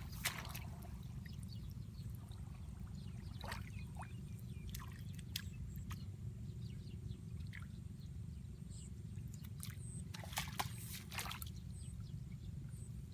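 Water sloshing and dripping in scattered short splashes, with clusters near the start, around four to five seconds in and around ten seconds in, over a steady low rumble.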